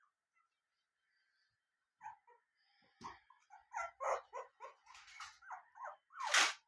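Puppies whining in a run of short, high cries that start about two seconds in, the loudest one near the end.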